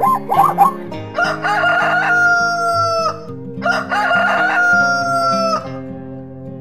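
A zebra's short, repeated barking calls, ending within the first second, then a rooster crowing twice. Each crow is a long call that holds its pitch and dips slightly at the end.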